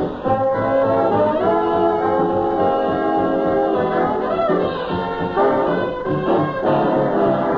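Big-band jazz recording with a brass section playing sustained chords that change every second or so. The sound is dull, with no high end, as on an old record.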